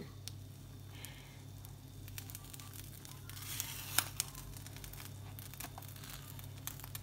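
Slotted spatula working under an omelette in a nonstick frying pan to fold it: light scattered clicks and a brief scraping rustle ending in a sharp click about four seconds in, over a steady low hum.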